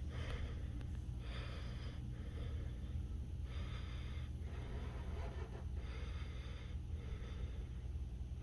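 Katydids calling: raspy, buzzing bursts just under a second long, repeating about every two seconds over a steady low hum.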